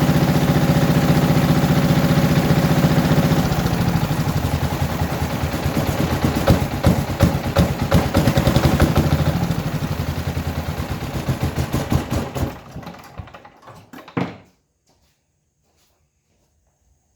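Wen D6000 diesel generator's engine running steadily, then about three and a half seconds in its note changes to an uneven knocking that slows and dies away as the engine shuts down, ending with a single thump near the end, then near silence.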